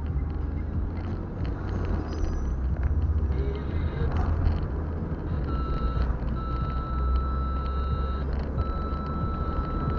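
Car driving slowly, heard from inside the cabin: a steady low engine and road rumble. About halfway through, a steady high electronic beep tone starts, breaks off twice briefly and carries on.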